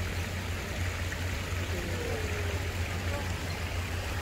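Water running steadily over a small cascade into a shallow garden stream, with a steady low hum underneath.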